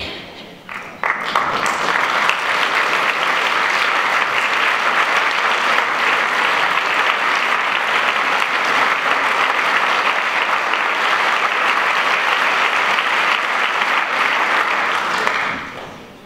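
Audience applauding as a performer walks on stage: a few scattered claps at first, quickly swelling into steady applause that holds for over ten seconds and dies away near the end.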